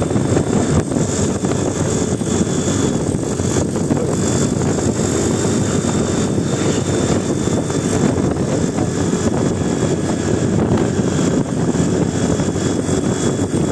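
Large vehicle engine running steadily close by, a loud even rumble with no horn sounding.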